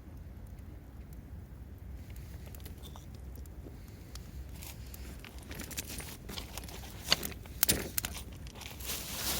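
Crunching and crinkling noises that start sparse and grow busier and louder in the second half, with a few sharp crunches near the end, over a low steady rumble.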